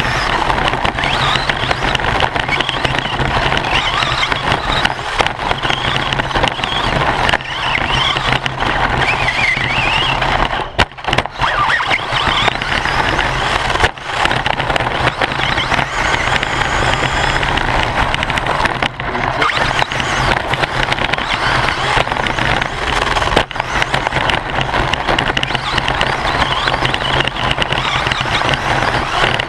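Onboard sound of a Team Associated radio-controlled short course buggy driving on a dirt track: motor and drivetrain whine rising and falling with the throttle over loud chassis rattle and tyre noise. The noise drops out briefly a few times, around 11, 14 and 19 seconds in.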